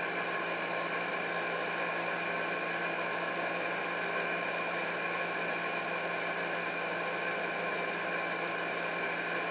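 Steady machine hum with several held tones, unchanging throughout, like a running fan or air conditioner in the room.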